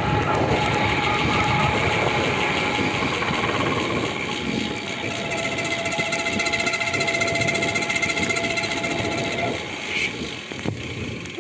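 Vision SC 40 disc carbon wheels on a road bike giving a steady, whining noise with several tones over the rolling noise after braking. The rider puts it down to the wheels, since other wheels on the same brakes stay quiet. One tone drops slightly in pitch about halfway, and the whine fades out after about ten seconds.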